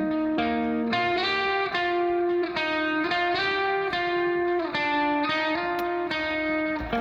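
Background music: a guitar melody, each note held about half a second before the next, at a steady level.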